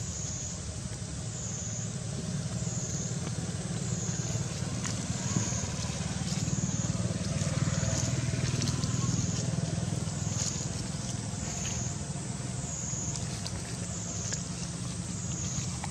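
Steady low rumble of motorbike traffic, under a high drone that swells and dips about every second and a quarter, with scattered light rustles and clicks.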